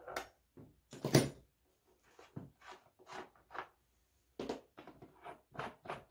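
A plastic fuel tank being handled on a workbench, with its filler cap worked by hand. There is a sharp knock about a second in, then a run of short clicks and scrapes, about three a second.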